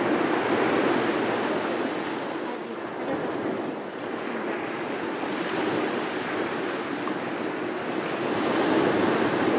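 Sea surf breaking and washing up a sandy shore, a steady rushing wash that eases off around the middle and builds again near the end.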